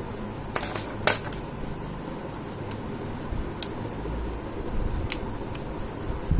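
Small metal screwdriver tip and pick scraping and clicking against the plastic housing of a keypad mobile phone: a scrape about half a second in, a sharp click about a second in, then a few light ticks. A steady hum runs underneath.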